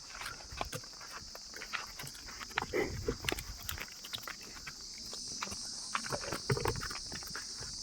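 Scattered footsteps on dry ground under a steady high chirring of insects, with a few short low animal-like sounds about three seconds in and again about six and a half seconds in.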